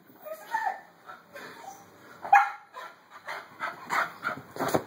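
Miniature schnauzer whimpering excitedly while hunting for a cat, with one sharp bark a little over two seconds in and a quick run of short sounds near the end.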